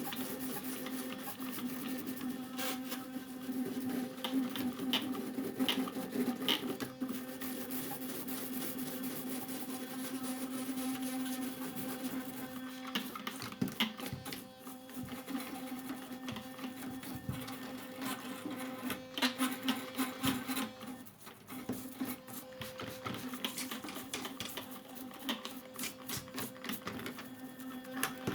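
Irregular scratching and scrubbing of a brush cleaning a typewriter's metal parts, over a steady low hum.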